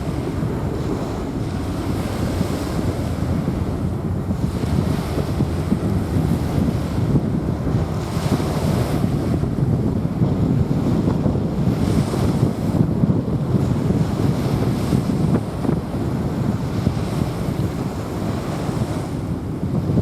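Small waves washing onto a sandy beach, with a steady low rumble of wind on the microphone; a couple of brighter washes of surf stand out about eight and twelve seconds in.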